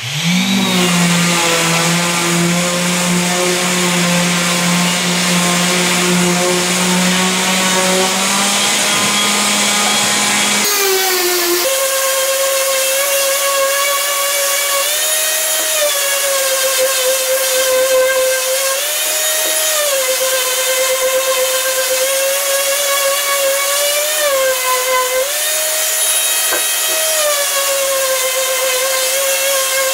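Random orbital sander running on a wooden board edge with 220-grit paper, rounding over the corner. A steady motor whine that changes tone about ten seconds in, then dips briefly in pitch every few seconds.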